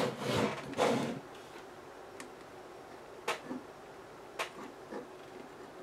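Handling noise as a bench multimeter is slid into place on a wooden bench, then a few faint, separate clicks as metal test-probe tips are touched to the solder pads of a small transformer circuit board.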